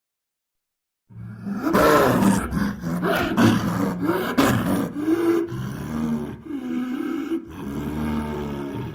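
Snow leopard calling: a run of loud, pitched calls that bend up and down in pitch, starting about a second in.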